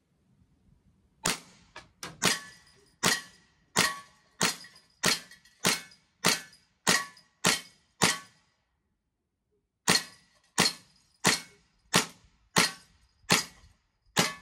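Beretta 92-style CO2 4.5 mm BB air pistol firing about eighteen shots in steady succession, roughly one every two-thirds of a second, with a pause of about two seconds midway. Each shot is a sharp crack with a brief ring.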